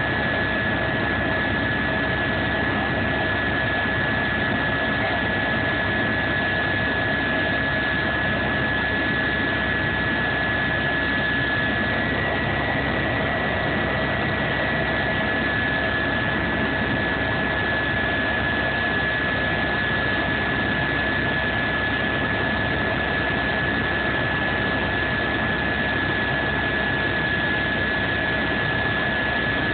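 Steady engine and airflow noise heard inside an aircraft cabin in flight: a constant rush with a high steady whine and a lower steady hum, unchanging throughout.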